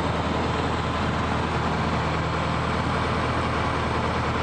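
Cessna 150's four-cylinder Continental O-200 engine and propeller running steadily, heard from inside the cabin.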